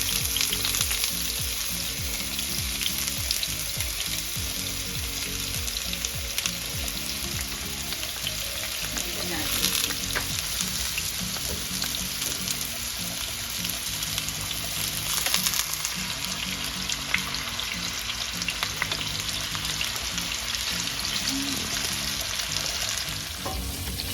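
Sweet potato pieces frying in hot oil in a pan: a steady sizzle with fine crackles, swelling louder briefly about ten seconds in and again around fifteen seconds.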